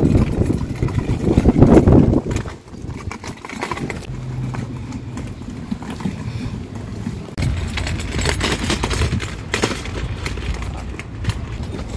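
Wheels of a loaded folding utility wagon rattling and crunching as it is pulled over gravel and a dirt path, loudest in the first two seconds, then a steadier rumble.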